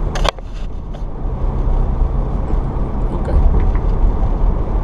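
2013 Toyota Tacoma pickup driving on a snowy road: a steady low rumble of engine and tyre noise inside the cab, slowly growing louder. A short sharp knock comes right at the start.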